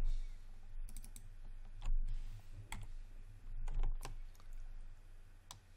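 A handful of separate computer keyboard and mouse clicks, spaced irregularly, over a low steady hum.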